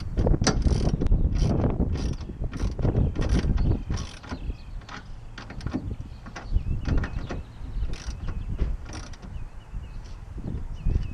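Irregular metal clicks and rattles of tonneau cover rail and clamp hardware being worked by hand against a pickup's bed rail, busy for the first few seconds and then sparser.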